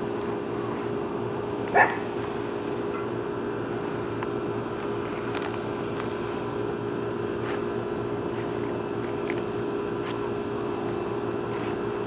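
A steady low mechanical hum with several fixed tones, like a running air-conditioning unit, with one short high-pitched cry about two seconds in that is the loudest sound.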